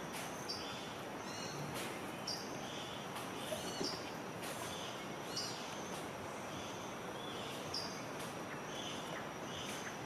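Forest ambience: a steady background hiss with a thin, steady high tone, and short high bird chirps recurring every second or two.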